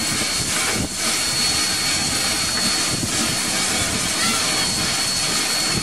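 Steam locomotive standing in steam, hissing steadily with a thin, constant high whine running through it.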